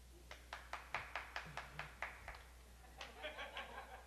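A lone run of sharp hand claps, about a dozen in two seconds, slowing slightly. A brief patch of faint voices with a few more claps follows about three seconds in.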